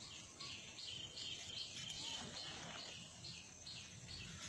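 A bird chirping over and over in a steady series of short, high notes, about two to three a second.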